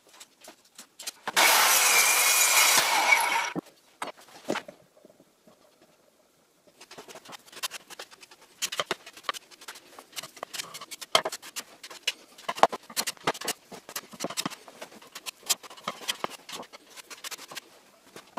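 Hand-held electric planer running briefly for about two seconds, a loud even whirring hiss that cuts off sharply. Afterwards only scattered faint clicks and taps.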